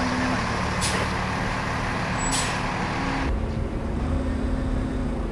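Heavy armored police truck's engine running as it drives past, with two short sharp hisses about a second apart. About three seconds in the engine noise cuts off abruptly, leaving a lower steady street rumble.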